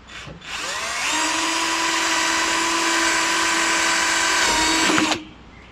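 Electric drill boring an eighth-inch hole for a pop rivet. The motor spins up with a rising whine, runs steadily for about four seconds, then stops.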